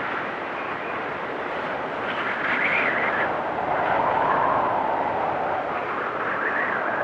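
Strong winter windstorm wind blowing steadily, swelling in gusts about two seconds in and again near the middle, its pitch shifting as each gust rises and falls.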